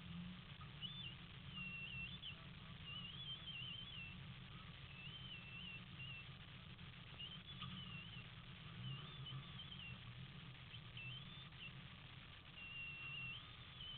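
A bird singing high, warbling phrases about a second long, repeated at irregular gaps, over a low steady rumble.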